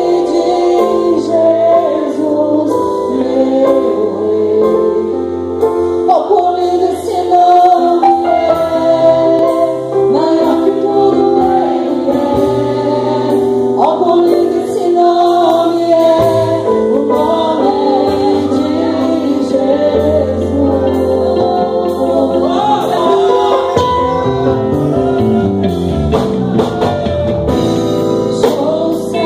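Live worship band playing a praise song: an electric guitar carries a sliding lead melody over bass guitar and keyboard.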